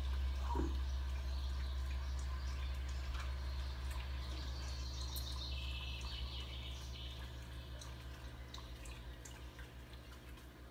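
Aquarium water dripping and bubbling over a steady low hum from the tank's pump or filter, growing fainter toward the end.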